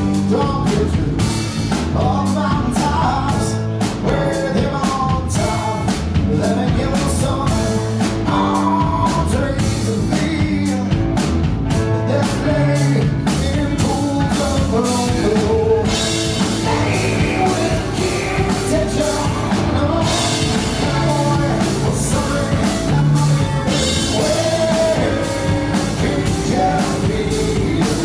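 Live rock band playing a song: electric guitars and a drum kit, with a singer at the microphone.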